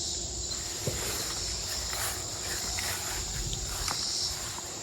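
Steady high-pitched insect chorus, with rustling and small crackles of tall weeds and garden plants being brushed through on foot.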